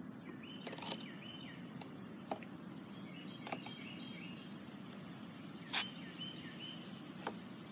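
A bird calls three times, each a short run of quick hooked chirps, over a faint low steady hum. Several sharp clicks or taps come in between, the loudest about six seconds in.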